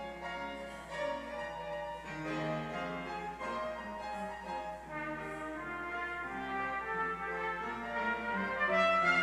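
Instrumental prelude music: a slow piece of sustained chords under a melody, the notes changing every half second to a second.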